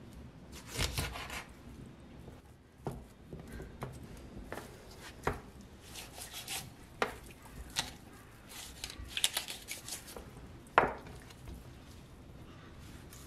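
Kitchen knife cutting up a raw chicken on a plastic cutting board: irregular taps of the blade against the board with soft slicing and scraping between them, and one sharper knock late on.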